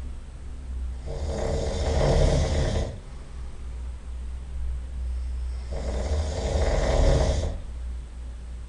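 A person snoring loudly: two long snores, each about two seconds, some four to five seconds apart, with quieter breathing sound between them.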